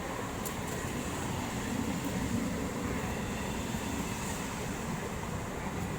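Indian local train running along the track, a steady rumbling noise without a horn.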